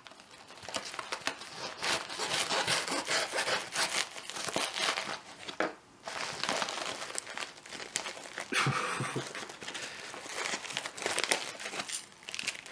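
Packaging being torn open and crumpled by hand, a continuous crinkling and tearing with a short pause about halfway through.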